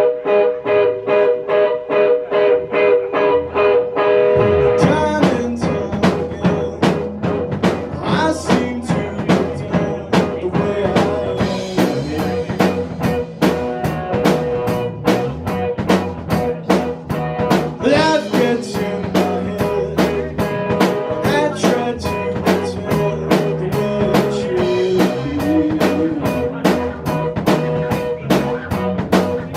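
Band music: a guitar picks a repeating figure alone, then drums and bass come in about four seconds in and the full band plays on.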